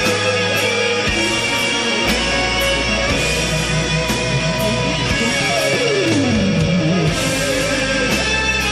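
Background rock music with electric guitar, with a falling pitch glide about halfway through.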